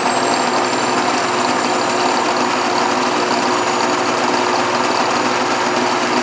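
Small 4x6 horizontal metal-cutting bandsaw running free without cutting: a steady hum of the motor and the blade running around its wheels, with a faint high whine. It is running so that the blade tracking on the bottom wheel can be checked.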